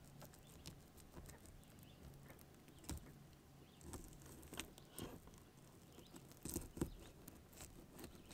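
Faint, scattered soft clicks and crackles of a 9-inch Kershaw fillet knife cutting into a crappie behind the gill plate, the blade working through scales and flesh on a plastic cutting board.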